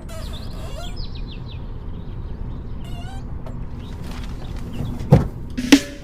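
Birds chirping in short quick calls over a steady low rumble, then a couple of sharp drum hits near the end as music begins.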